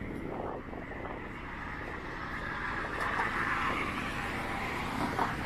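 Road traffic passing, with one vehicle going by about three seconds in.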